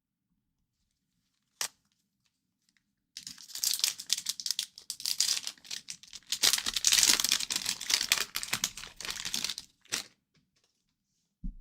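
A hockey card pack's wrapper being torn open and crinkled, a dense crackling that lasts about six seconds. There is a sharp click shortly before it and another as it stops.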